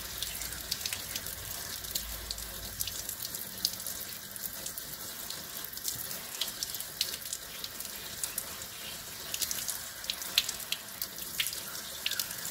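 Warm water from a tap's shower-spray head running steadily and splattering over hands and a piece of fabric held under it, with a constant crackle of drops, as the water-soluble film on the fabric is rinsed away.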